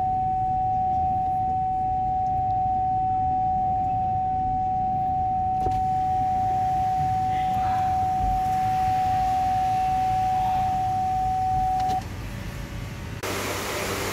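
Ford Everest's parking-sensor warning: rapid beeps run together into one continuous high beep, the tone for an obstacle very close, which cuts off about twelve seconds in. Near the end a steady mechanical hum takes over.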